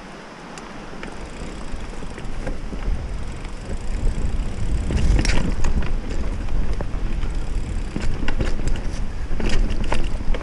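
GT Avalanche Comp mountain bike ridden fast on a dirt singletrack, heard from a handlebar-mounted camera: tyres rumbling over the trail, growing louder after about two seconds, with sharp rattles and clacks from the bike over bumps about halfway through and again near the end.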